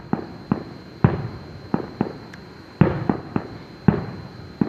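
Fireworks shells bursting in quick succession, about ten sharp booms at uneven intervals, each trailing off in a short rumble, during what is taken to be the finale.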